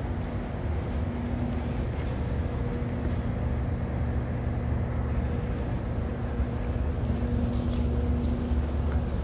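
Steady low rumble and hum of an underground metro station's ambience, with a faint humming tone that drops out and returns.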